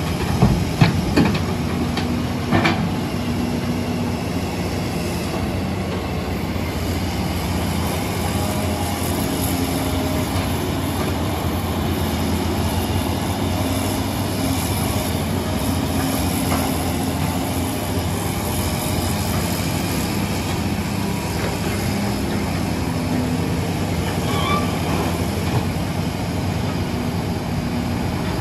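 Diesel engines of hydraulic excavators and dump trucks running steadily under work. A few sharp knocks come in the first three seconds.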